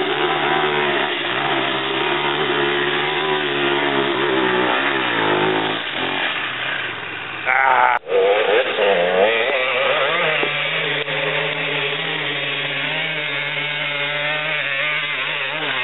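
Dirt bike engines revving hard under load on a hill climb, the pitch rising and falling as the throttle is worked. The sound breaks off sharply about eight seconds in and comes straight back.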